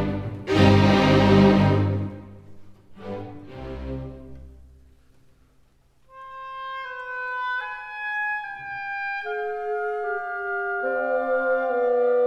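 Background music. A loud, full passage fades away over the first few seconds, and after a brief lull a soft melody of long held notes over sustained chords begins about six seconds in, slowly growing louder.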